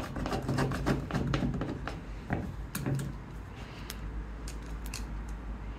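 Caulking gun being worked with a grab adhesive cartridge: irregular light clicks and knocks as the gun is handled and its trigger squeezed to push the adhesive out.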